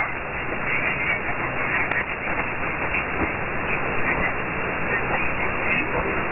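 Shortwave receiver audio from 6050 kHz in AM mode: a steady hiss of static, with a weak broadcast signal too weak to be understood, which may be RTV Malaysia. A few faint clicks come through the noise.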